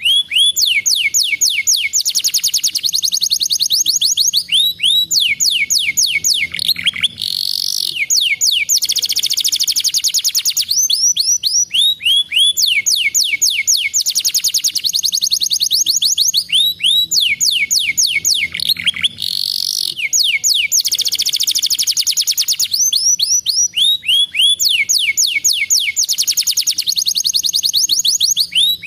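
Domestic canary singing: long, high-pitched runs of fast rolling trills and rapid chirps, broken by a brief downward glide and a rising whistle. The same song sequence comes round about every twelve seconds.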